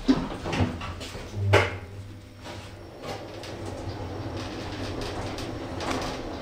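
Lift doors sliding shut and closing with a thud about a second and a half in, then the car travelling with a steady low hum. The lift is a third-generation Kone EcoDisc with a KSS570 door operator.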